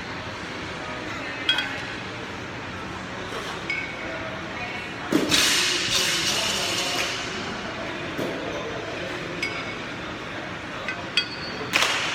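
A pair of 8 kg kettlebells clinking together as they come down into the rack position during two-arm jerks: a loud ringing clink about five seconds in and another near the end, with fainter knocks between.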